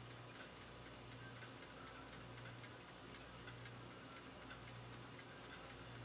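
Near silence: room tone with faint, regular ticking and a low hum that swells and fades several times.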